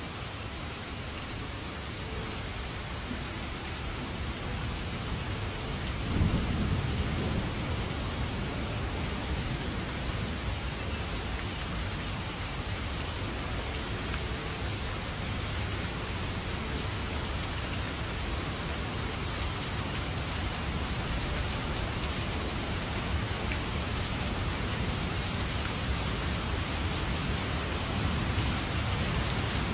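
Heavy rain pouring steadily, with a sudden low rumble of thunder about six seconds in and more thunder building near the end.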